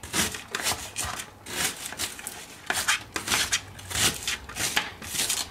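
Kitchen knife rough-chopping an onion on a cutting board: an uneven series of sharp chops, about two or three a second.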